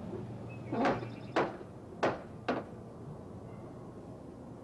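Knuckles knocking on a front door: four knocks, about half a second apart.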